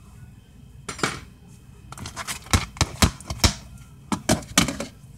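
Homemade glue slime, still a little sticky, being squeezed and pulled between the hands close to the microphone: an irregular run of sharp clicks and pops starting about a second in.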